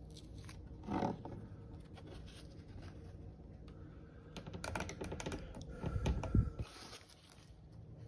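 Faint handling sounds of a pocket knife and a turkey-feather quill on a wooden tabletop: a soft knock about a second in, then a run of light clicks, scrapes and knocks in the second half.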